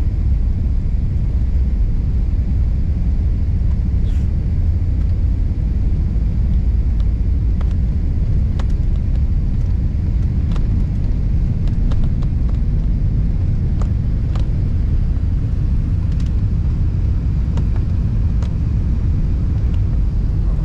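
Jet airliner taxiing, heard from inside the cabin: a steady low rumble with faint scattered ticks.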